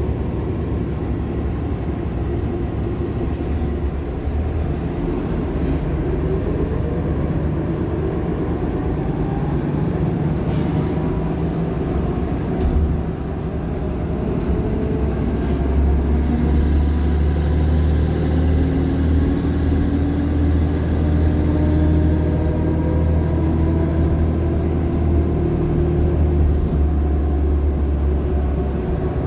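Interior sound of a Nova LFSA hybrid articulated bus under way: a Cummins ISL9 diesel with an Allison H50 EP hybrid drive gives a low drone that grows stronger about halfway through, with a whine that rises slowly in pitch as the bus gathers speed, twice. A thin, very high squeal rises and holds over the second half, then drops away near the end.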